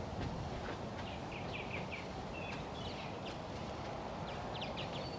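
Small birds chirping in short quick runs, twice, over a steady low outdoor background noise.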